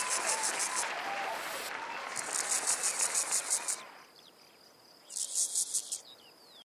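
Crickets chirping in fast, high pulsing trains, three bursts of about a second each, over a steady rushing noise that stops abruptly about four seconds in. The audio cuts off just before the end.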